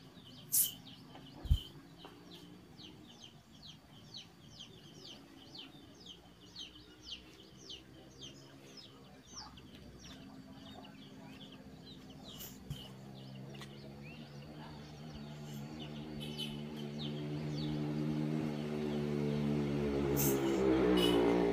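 Rapid, high, falling chirps of small birds, repeated many times over the first two-thirds. Over the second half a steady engine hum grows gradually louder.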